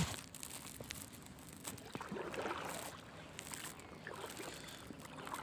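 A paddle stroking through calm water beside a small canoe: faint swishing and dripping, swelling softly about two seconds in.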